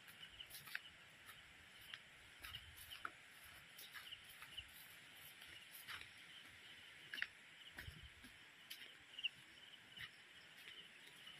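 Faint outdoor ambience: a steady high chirring with many small chirps, of insects and birds, and scattered soft ticks, with a couple of low soft thumps.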